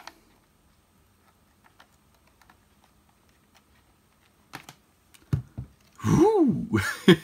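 Faint scattered clicks and taps of a power cable being handled and plugged into the base of an Amazon Echo smart speaker, with a few sharper knocks about four and a half to five and a half seconds in. A voice starts near the end.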